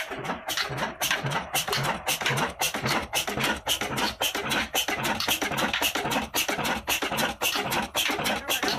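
Old Ruston & Hornsby stationary diesel engine running: a fast, even clatter of sharp knocks, about five a second, over a heavier thump roughly every half second.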